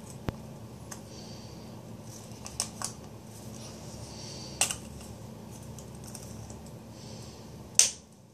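Scattered small clicks and taps of a metal lipstick tube and its cap being handled, with a louder sharp click near the end.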